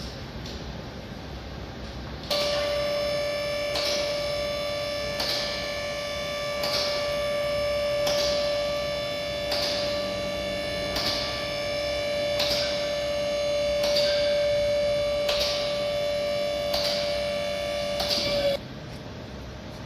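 Background music: a steady held electronic drone with a soft beat about every one and a half seconds. It cuts in about two seconds in and stops abruptly near the end.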